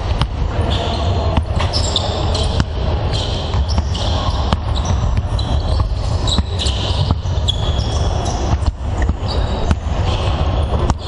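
Several basketballs bouncing on a wooden court in a large echoing sports hall, a steady scatter of sharp thuds over a low background rumble.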